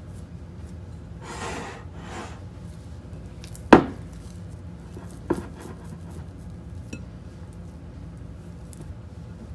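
Hands stretching and folding wet sourdough dough in a glass bowl. A soft rubbing sound comes about a second in, then a sharp knock against the glass bowl near four seconds in, the loudest sound, and a lighter knock about a second and a half later.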